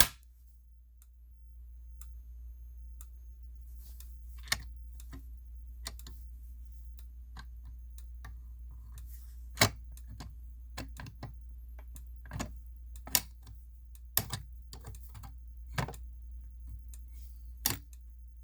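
Irregular clicks and knocks of a fire alarm pull station being handled with its return spring removed, more frequent in the second half, over a low steady hum.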